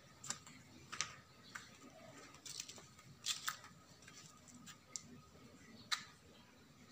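Scattered sharp clicks and taps at irregular intervals over a faint, quiet background, a few of them louder, around a second in, at three and a half seconds and near the end.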